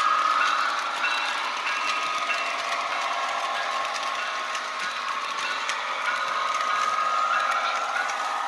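Model train running past on its track: a steady electric motor whine with the rattle of wheels rolling over the rails, swelling a little as the cars pass closest.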